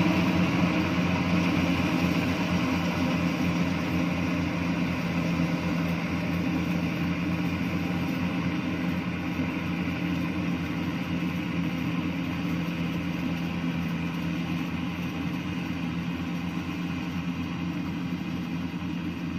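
Yanmar YH850 rice combine harvester's diesel engine running steadily as the machine harvests, a constant drone that grows slowly quieter as the combine moves away.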